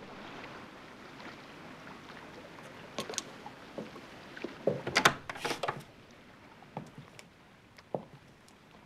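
Steady wind noise, then a couple of sharp knocks about three seconds in and a louder clatter of wood around five seconds as a wooden door is pushed open. After that it is quieter, with a few single footsteps.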